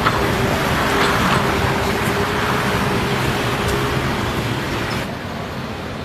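Steady road traffic noise, with a low steady hum that stops about four seconds in; the sound changes and gets a little quieter about five seconds in.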